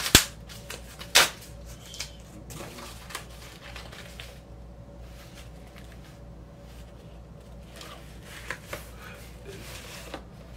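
Cardboard vinyl record mailer being torn open along its tear strip: three short loud rips in the first second and a half, then quieter rustling and handling of the cardboard.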